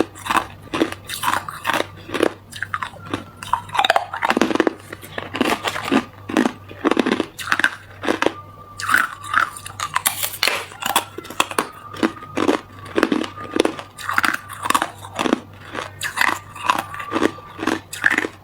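A person biting and chewing hard clear ice close to the microphone: rapid, irregular sharp crunches, two to three a second, with no pause.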